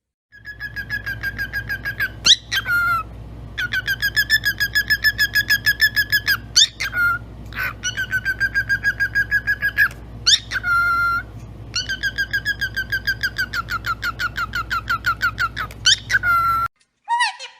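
Pet parrot whistling long runs of rapid, pulsed trills on one pitch, broken several times by short rising whistles, with a low hum underneath; it cuts off suddenly near the end.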